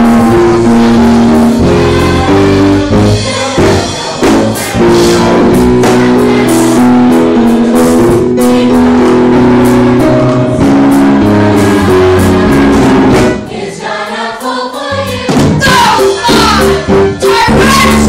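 Live stage musical number: a chorus of children singing over band accompaniment with a steady beat. The music dips briefly about three-quarters of the way through, then the singing picks up again.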